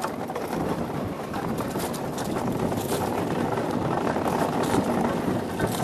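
Monotype XV ice yacht sailing at speed: a steady rumbling hiss of its runners over the ice, mixed with rushing wind.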